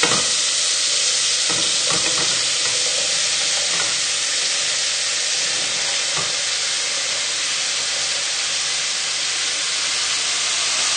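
Bacon lardons and chopped vegetables frying in oil in a hot pan: a steady sizzle, with a few light knocks.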